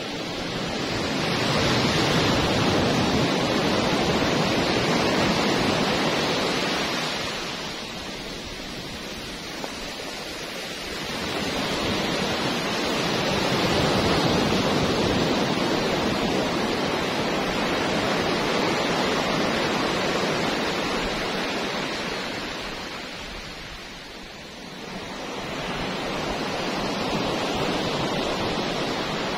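Sea surf breaking and washing up a sand beach. It swells and fades in three long surges.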